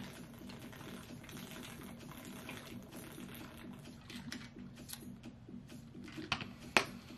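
A person gulping down a drink from a shaker bottle in long swallows, with small irregular clicks throughout. Two sharp clicks come near the end, the second the loudest.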